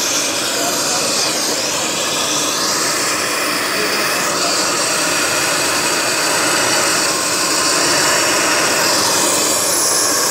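Eurocopter EC135 helicopter running on the ground: a loud, steady turbine whine and rotor rush, with a faint high whine slowly rising near the end.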